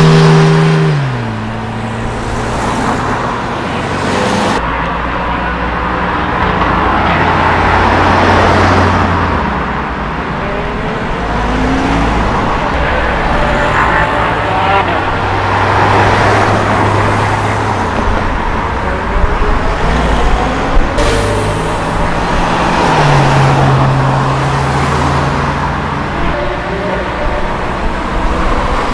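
A series of cars pulling away and driving past one after another, each engine note swelling and fading. It opens loudest with a Porsche 911 (996) Turbo's flat-six, whose note drops about a second in.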